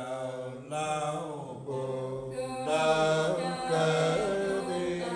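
Unaccompanied Nùng folk singing: a voice holding long, drawn-out notes that waver and slide in pitch, in a chant-like style.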